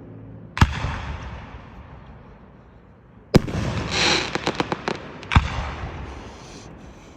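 Aerial fireworks bursting close by: a sharp bang about half a second in, another about three and a half seconds in followed by a quick run of crackling pops, and a third bang a couple of seconds later, each trailing off in a rumbling echo.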